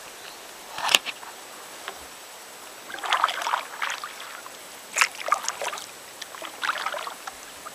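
Kayak paddle strokes splashing in river water: a sharp knock about a second in, then three short splashy strokes spaced about two seconds apart.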